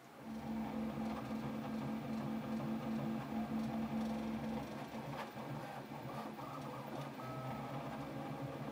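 Bambu Lab P1S 3D printer running a print with its enclosure door closed and no sound damping, laying down gyroid infill with fast moves and many direction changes. A steady mechanical hum with several motor tones; a strong mid tone drops out about halfway through and higher tones come and go near the end.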